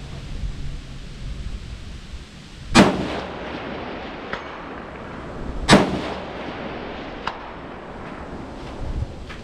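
Two precision rifle shots about three seconds apart. Each is followed about a second and a half later by a faint ping of the bullet striking a distant steel target.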